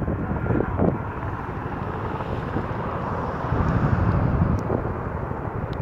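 Sikorsky S-64 Skycrane firefighting helicopter hovering with its snorkel lowered to take on water: steady heavy rotor and turbine noise, swelling slightly about four seconds in.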